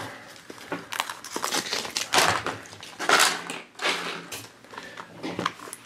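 Clear plastic shrink wrap crinkling as it is torn and peeled off a toy capsule ball, in a run of uneven bursts, the loudest about two and three seconds in.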